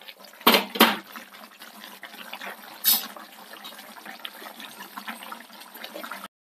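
Fish curry boiling in an earthenware clay pot, a steady crackling bubble and sputter. The pot is set back down on the gas burner's grate with two sharp knocks about half a second in, and there is another knock near three seconds.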